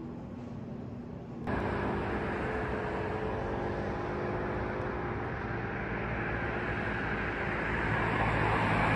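Outdoor ambience with a steady rumble of road traffic, cutting in suddenly about a second and a half in after a quieter stretch and growing a little louder near the end.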